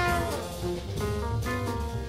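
Background music: instrumental jazz with brass and a drum kit, held horn notes over a steady beat.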